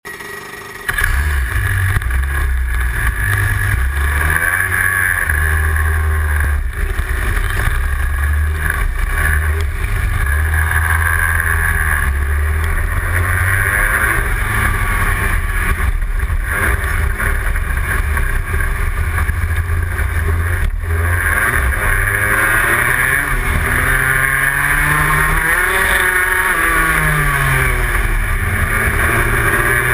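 Rotax 125 Max single-cylinder two-stroke kart engine at racing pace, revving up on the straights and dropping in pitch into the corners, over and over. It comes in loud about a second in.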